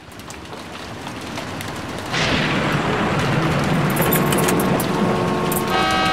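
Heavy rain fading in, with a thunderclap about two seconds in. From about four seconds in, car horns sound over the rain, louder near the end.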